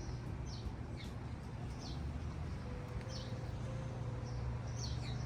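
A small bird chirping: short, high notes that fall in pitch, repeated every half second to a second or so, over a steady low rumble.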